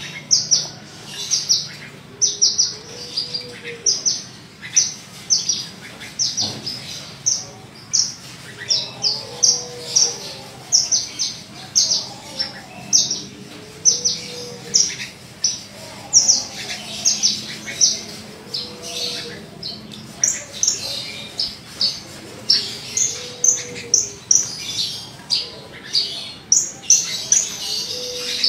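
Javan bush lark (branjangan, Mirafra javanica parva) singing: a steady run of short, sharp high notes, about two a second. A lower rising-and-falling phrase comes in every four or five seconds.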